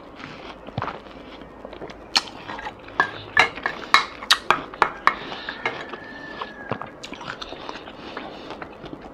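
A wooden spoon knocking and scraping in a rice bowl while scooping rice: a quick run of about a dozen sharp clicks over some three seconds, with quieter chewing around it.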